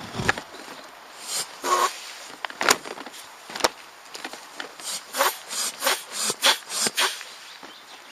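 Hands rubbing and pressing on an inflatable PVC kayak seat, making an irregular run of short scraping rubs that come quicker in the second half, with a brief squeak of the vinyl about two seconds in.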